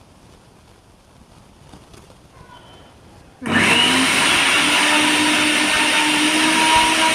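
Usha Maximus Plus 800 W mixer grinder switched on about halfway through. Its motor spins up in under a second, then runs loud and steady with a whine.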